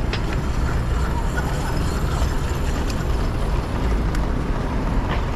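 Steady street traffic noise with a low wind rumble on the action camera's microphone while cycling, and a few faint ticks.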